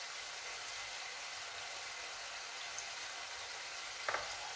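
A pan of mixed grains and artichokes cooking in broth on the stove, a steady sizzling hiss, with a light knock about four seconds in.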